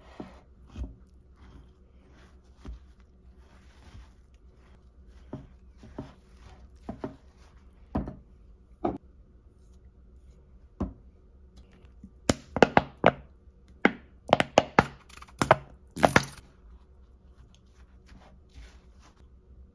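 A silicone spatula and a metal spoon stirring a dry mix of protein powder, oats and nuts in a ceramic baking dish: scattered knocks and scrapes against the dish, with a quick run of sharp taps from about twelve to sixteen seconds in.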